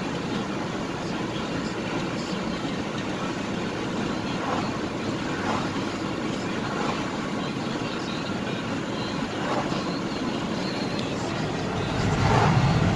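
Steady road and engine noise heard from inside a moving vehicle's cabin, with the low rumble growing louder near the end.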